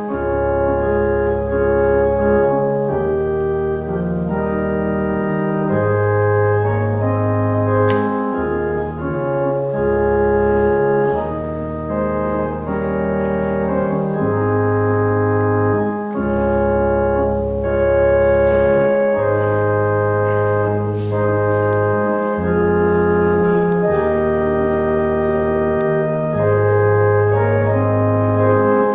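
Church organ playing a slow instrumental piece of held chords over sustained bass notes that change every second or two.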